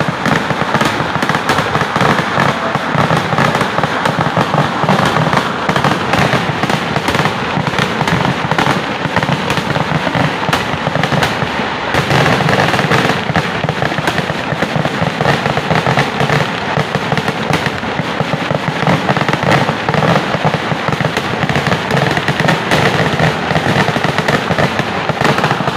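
Kerala temple-festival fireworks (vedikettu): a dense, continuous barrage of firecrackers going off, a rapid unbroken crackle of bangs with no pause.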